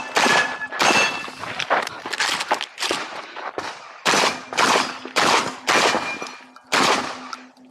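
Shotgun fired in a rapid string, about nine shots spaced under a second apart, each with a short ringing echo.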